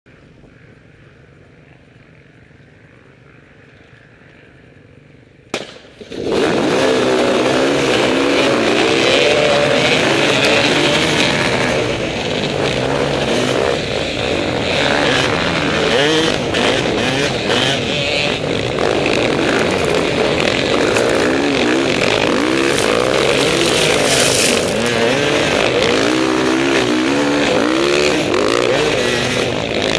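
A pack of off-road dirt bikes racing: after a few seconds of faint sound and a sharp click, engines come in loudly about six seconds in and keep going, the onboard bike's engine revving up and down through the gears with the other bikes' engines around it.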